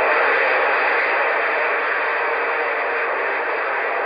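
Steady hiss of static from a Cobra 148 GTL CB radio's speaker while it is receiving, with no station coming through on the channel.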